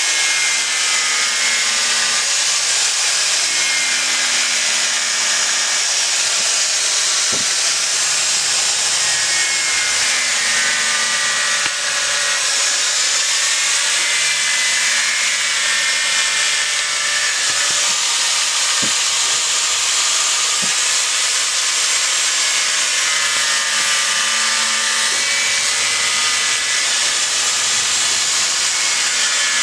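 Electric angle grinder running with its disc grinding and shaping monkeypod wood: a loud, steady hiss of abrasion over the motor's whine, which dips and recovers again and again as the disc bites into the wood and eases off.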